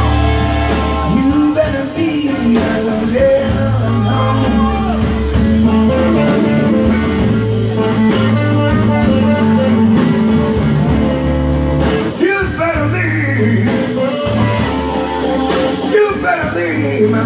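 Live blues-rock band playing: electric guitars over bass and drums, with a man singing.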